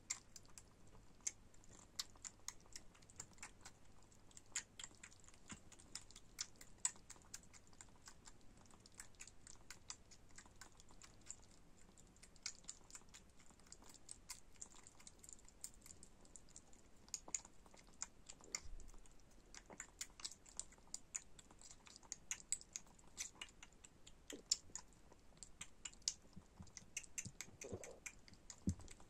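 Bengal kitten, about six weeks old, suckling from a bottle nipple: faint, irregular wet clicking and smacking, several clicks a second.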